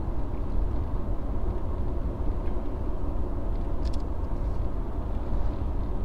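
Steady low rumble of a car driving at highway speed, heard from inside the cabin: road and engine noise.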